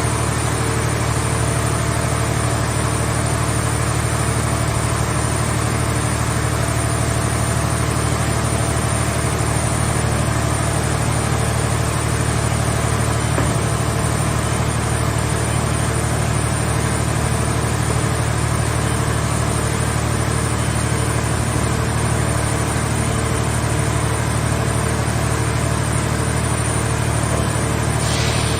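Hydraulic scrap-car baler's power unit running steadily: a constant low engine drone with steady tones above it, unchanging in pitch and level.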